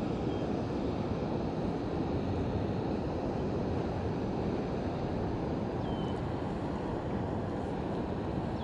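Steady wind noise buffeting the microphone over the rush of fast river current below a dam spillway.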